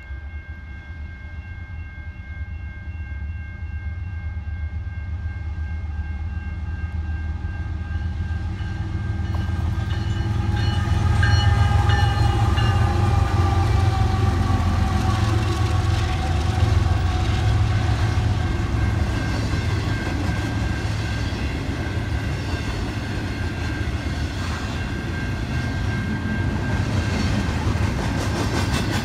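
A diesel freight train approaching with its air horn sounding a steady chord. The horn stops about twelve seconds in, as the locomotives pass with a deep engine rumble and a falling whine. The train's cars then roll by with a steady rumble and wheel clatter.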